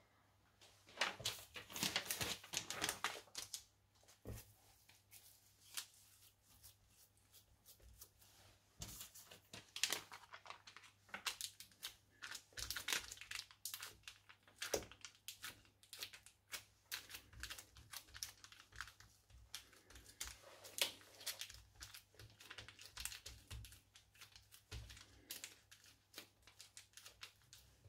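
Plastic cling film crinkling in faint, irregular crackles as hands press and flatten a ball of minced beef into a patty between two sheets of film. The crackling stops for a few seconds early on, then resumes and keeps going.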